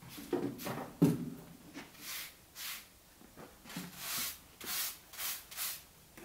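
Plastic broom sweeping a cement floor in repeated scraping strokes, about two a second.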